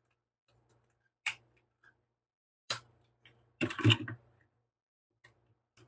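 Sharp clicks and taps from a transformable Optimus Prime toy figure being handled and posed: single clicks about a second in and near the middle, then a short cluster of clicks and rubbing as its feet are set down on a wooden desk.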